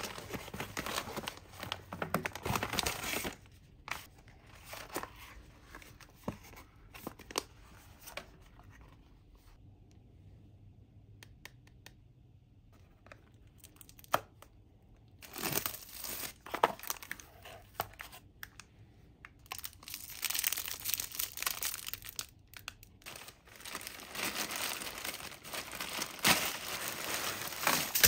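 Packaging being opened by hand: a paper mailer bag crinkled and torn open at the start, then quieter handling with light clicks of a small cardboard box. Near the end a plastic mailer bag is torn and rustled.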